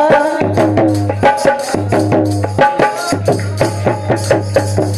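Instrumental break in a devotional Sai bhajan: a steady beat of hand percussion with a melody line over it, between sung verses.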